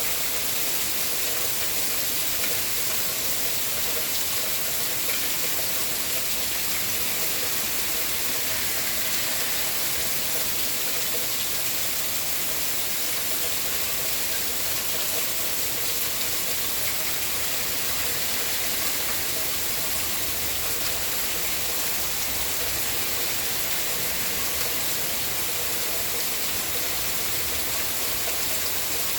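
Steady rainfall, an even hiss without breaks or single drops standing out.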